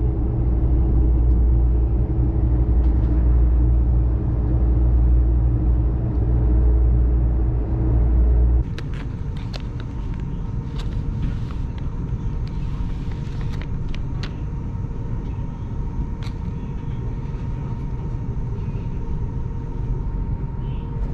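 High-speed train running over a bridge, heard from inside the carriage: a loud, steady low rumble. About eight and a half seconds in it cuts to a quieter steady cabin hum, over which a plastic wet-towel packet crinkles and crackles as it is torn open.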